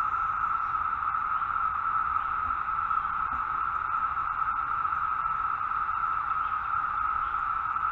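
Dense chorus of 17-year periodical cicadas: a steady, unbroken high hum that holds one pitch without a break.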